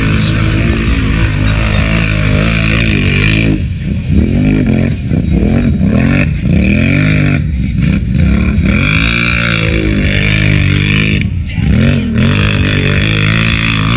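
Four-wheeler (ATV) engine revved hard over and over while churning through deep mud, its pitch swinging up and down about once a second.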